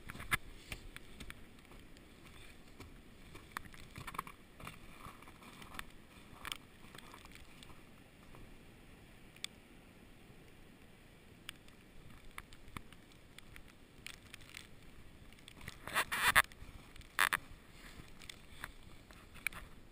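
Snowstorm wind blowing against the microphone as a steady rush, with scattered small crunches and scrapes, and two louder crunches near the end.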